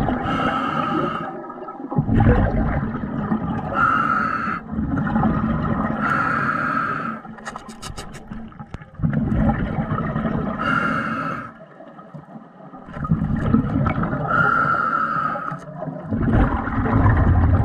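A diver breathing underwater through a mouthpiece: slow, regular breaths about every three to four seconds, each a hissing inhalation followed by a bubbling exhalation.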